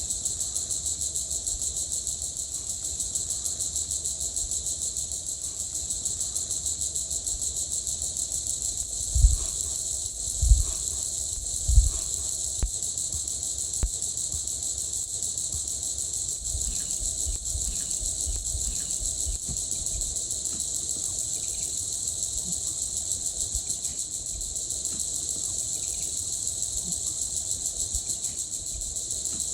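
Steady night-time chorus of insects, likely crickets, with three loud, dull thumps about a second and a half apart near the middle, followed by a few fainter knocks.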